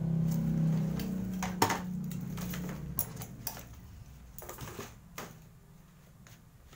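Cardboard box and packaging being handled: a string of light clicks, taps and rustles, with a sharper knock about one and a half seconds in. A low hum sounds over the first two seconds or so, then fades.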